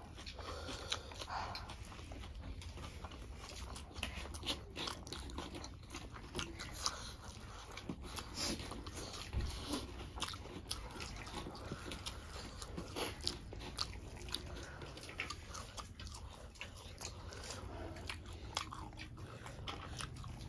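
Close-miked chewing and crunching of food, with irregular wet mouth clicks and bites, as two people eat with their hands.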